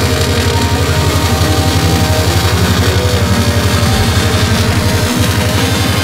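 Loud heavy rock music with distorted guitar and a fast, driving drum beat.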